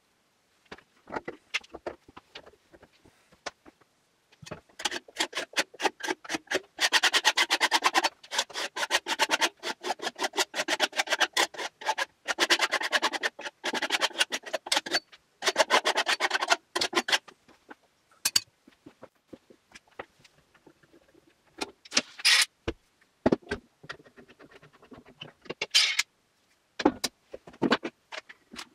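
A steel blade scraping glue squeeze-out off the seams of a glued-up spruce board panel, in fast repeated strokes for about twelve seconds, then slower scattered scrapes and a few knocks.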